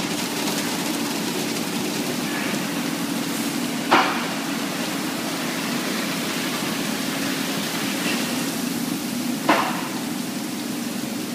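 Automatic tunnel car wash running: a steady hiss of spraying water over a constant machinery hum, with two sharp knocks, one about four seconds in and one about nine and a half seconds in.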